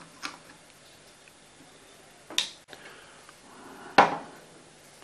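Small plastic clicks from a bottle cap being unscrewed, with a sharper click about two and a half seconds in. About four seconds in comes a single loud knock with a brief ring as a glass measuring jug is set against the table.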